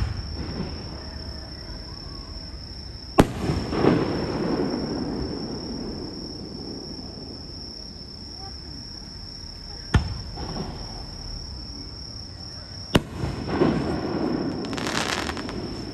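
Aerial fireworks shells bursting: four sharp bangs, one near the start, one about 3 s in, one about 10 s in and one about 13 s in, each followed by a rolling rumble. A crackling burst comes near the end. Crickets chirp in a steady high tone throughout.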